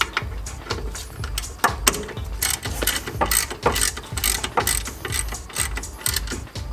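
Hand ratchet wrench clicking in quick bursts as the bolts of a brake caliper are run down and tightened.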